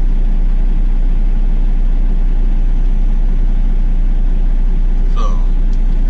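Semi truck's diesel engine idling steadily, a constant low drone heard from inside the cab.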